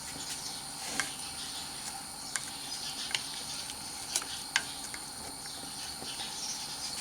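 Pot of vinegar, sugar and sliced shallots heating on the stove toward a simmer: a steady faint hiss with scattered small ticks and pops.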